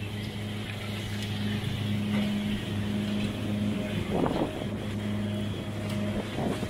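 Houseboat's inboard engine running with a steady low hum as the boat cruises, with two brief louder sounds about four seconds in and near the end.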